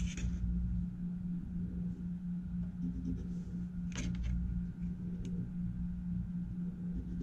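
Steady low hum of room tone under faint rustles and light taps as a clear acrylic ruler and a marker pen are moved over fabric strips on a cutting mat; one sharp click about four seconds in.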